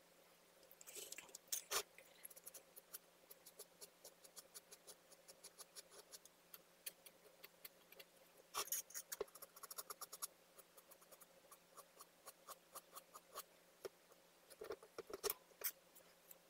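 Faint ticking and scraping of small metal palette knives working decorative plaster on a palette board and the bottle, with a few louder scrapes about two seconds in, around nine seconds and near the end.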